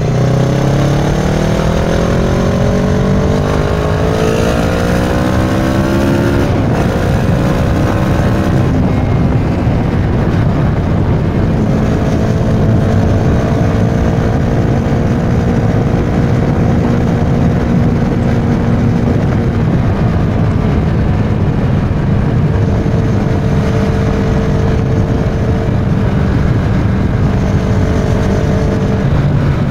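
Kawasaki Versys 650 parallel-twin engine through a Giannelli aftermarket exhaust, heard from the rider's seat at speed. The revs climb for about eight seconds, broken once about six seconds in, then hold steady at a cruise, with constant wind rush over it.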